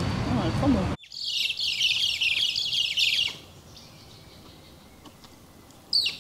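About a second of street noise, then a flock of birds chattering: a dense run of rapid, high, falling chirps and squawks. The chirping stops a little after three seconds in and starts again near the end.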